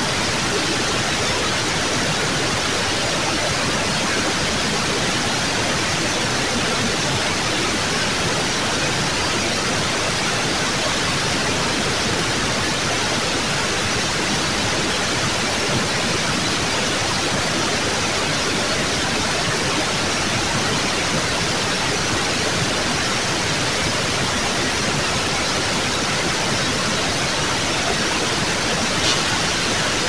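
Steady, unbroken rush of a waterfall, an even hiss with no rise or fall, with one faint click near the end.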